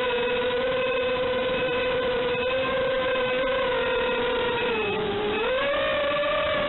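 FPV quadcopter's electric motors whining at a steady pitch, dipping briefly about five seconds in and then rising again.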